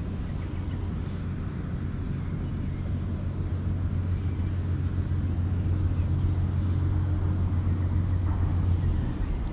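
Low, steady engine drone that slowly grows louder and then drops away near the end.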